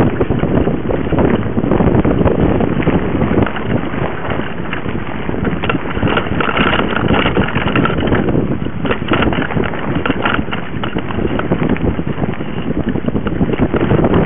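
Wind buffeting the microphone of a camera mounted on a mountain bike, over the bike's constant rattling and knocking and tyre noise as it rides a rough dirt trail.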